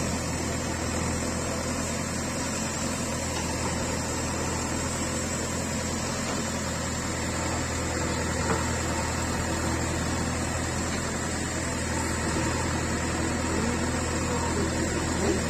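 JCB backhoe loader's diesel engine running steadily, a low even hum, while its backhoe arm works the spoil heap.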